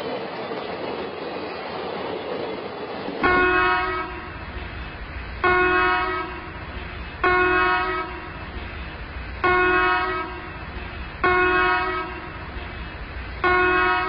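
Indian Railways train horn sounding six short, even blasts about two seconds apart, after about three seconds of steady rushing noise.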